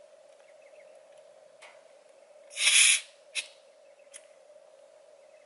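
A short hiss of air escaping from a tyre valve as a pressure gauge is pressed onto the valve stem, lasting about half a second, a little before the middle. A few light clicks of the gauge on the valve come before and after it.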